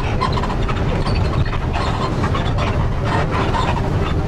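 Steady low rumble of a running engine or moving vehicle, with scattered faint clicks and clatter.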